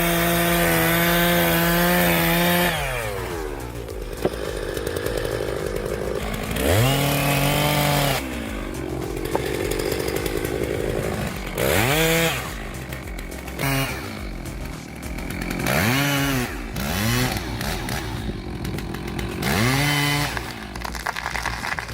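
Chainsaw engine held at high, steady revs, dropping off about three seconds in, then running low between several short blips of the throttle that rise and fall in pitch.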